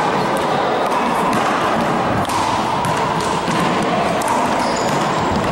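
Small rubber handball smacking against the wall and the hardwood floor several times during a rally, sharp separate hits over a steady background din of voices.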